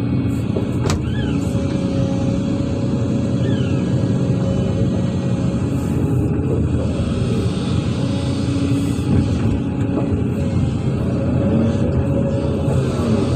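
Hydraulic excavator's diesel engine running steadily while the machine digs and swings a load of soil to a dump truck.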